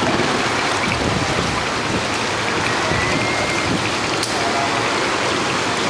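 A steady, even hiss of water over a flooded street. A faint short whistle comes about three seconds in, and a single click a little after four seconds.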